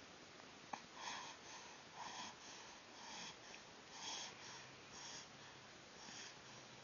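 Faint, soft breathing, one quiet breath about once a second, with a small click just under a second in.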